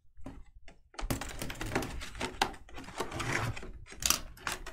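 Shrink-wrapped cardboard box being handled, the plastic wrap crinkling with irregular crackles and taps, starting about a second in.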